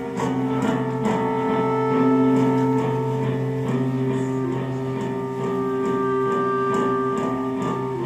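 Live free-improvised music: long overlapping held notes from an electric guitar through effects pedals and a clarinet, shifting pitch every few seconds, with faint small ticks over them.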